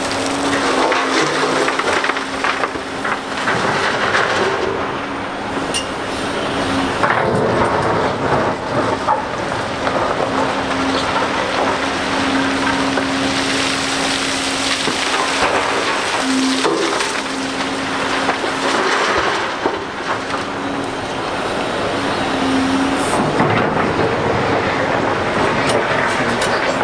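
Heavy earthmoving machinery working, most likely the Volvo EC750E L excavator and A60H articulated dump truck: diesel engines running under load, with a steady whine that swells and dips over a dense rumble and clatter.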